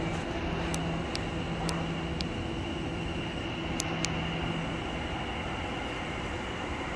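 Electric passenger train standing at a platform, its equipment giving a low hum that comes and goes over steady station noise. A few sharp clicks are heard, the loudest just under four seconds in.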